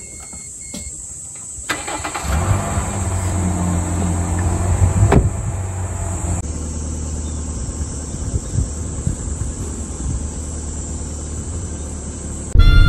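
Car engine starting about two seconds in, its pitch settling over the next couple of seconds, then running steadily.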